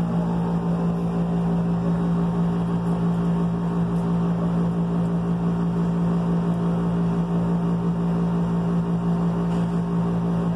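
A steady machine hum with a strong low tone and overtones, even and unchanging throughout.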